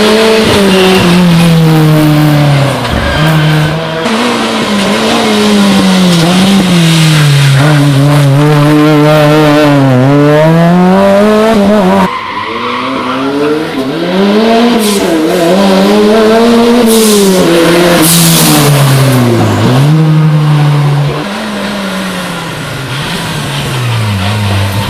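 Rally cars driven flat out on a special stage: engines revving high, pitch rising and then dropping sharply again and again through gear changes and braking, with tyres squealing. About twelve seconds in the sound jumps abruptly to another car's run.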